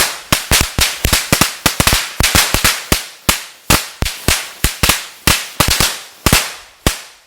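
A hanging strip of Vixen firecrackers going off: a rapid, irregular run of sharp bangs, about four a second, ending abruptly just before the seven-second mark.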